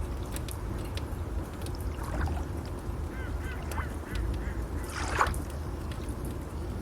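Ducks or geese calling a few times, with a louder call about five seconds in, over a steady rush of water and waves. Faint sharp crackles are scattered throughout.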